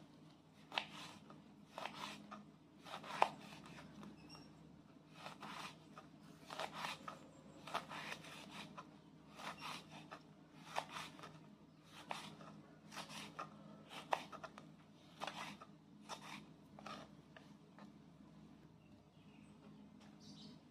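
Kitchen knife slicing large red chillies thinly on a wooden cutting board: soft, irregular cuts about one or two a second, stopping a few seconds before the end.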